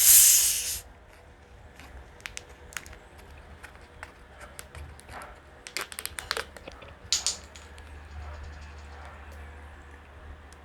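A Coke bottle opened with a short fizzing hiss at the start, then scattered small clicks and crackles, loudest in clusters around six and seven seconds in.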